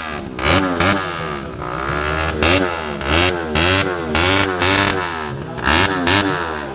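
Tuned Yamaha WR dirt-bike engine being revved in repeated quick blips, the pitch rising and falling about twice a second.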